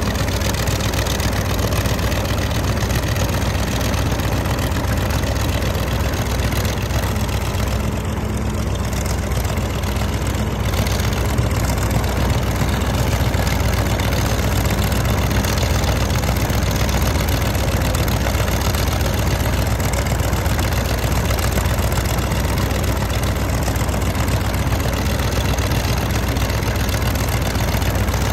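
Hino F20C V8 diesel engine of a tracked paddy-field tilling machine running steadily with a deep, even sound.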